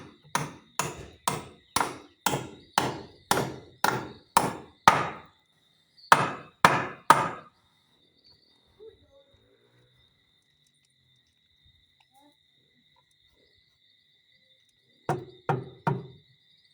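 Hammer driving nails: a run of blows at about two a second for five seconds, three more after a short pause, then a long gap and three more near the end.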